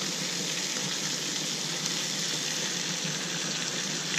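Trout fillets frying in a pan of bubbling fat, a steady sizzle.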